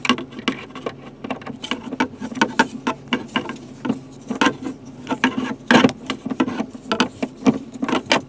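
Irregular clicks, taps and small rattles of a pocket-knife screwdriver bit working at Phillips screws in a plastic overhead console cover.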